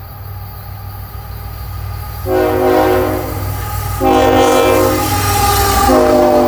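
Lead locomotive IC 3008's multi-note air horn sounding a horn show, a chord of several notes at once. After about two seconds of rumble alone it gives three blasts: two of under two seconds each, then a third starting near the end. A steady low rumble from the passing train runs underneath.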